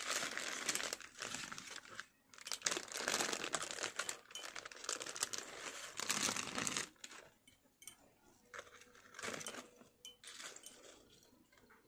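Paper and plastic wrapping crinkling and rustling as hands unwrap a jewellery parcel, dense for about the first seven seconds, then in sparser, quieter bursts.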